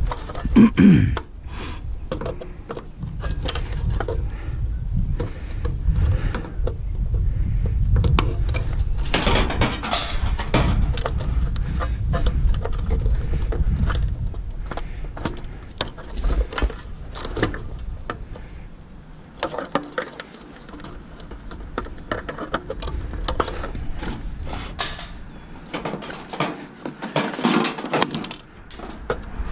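Metal parts of a stove being pried and worked by hand: repeated clanks, rattles and scraping as a piece is worked loose to break it off.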